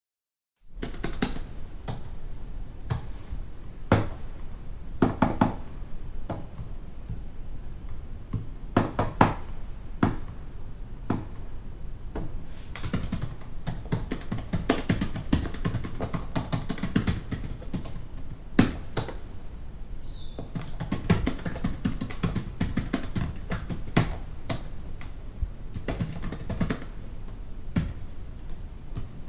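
Computer keyboard typing heard from some distance across an office: irregular runs of key clicks with heavier strokes now and then, over a low steady room hum.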